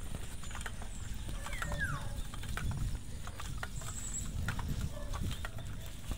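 Bicycle ride over rough ground: irregular rattling clicks and a low wind rumble on the microphone, with one falling whistled call about two seconds in.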